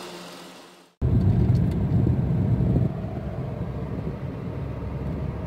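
Volkswagen Polo heard from inside the cabin while driving at about 65 km/h: a steady low rumble of engine and road noise. It starts abruptly about a second in, is louder for the first two seconds, then settles lower.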